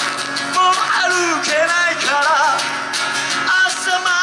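Acoustic guitar strummed while a man sings long, wavering notes through a PA, in a solo live performance.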